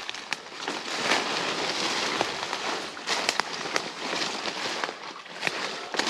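Footsteps crunching through dry leaves and brush, with irregular sharp cracks of twigs and sticks underfoot.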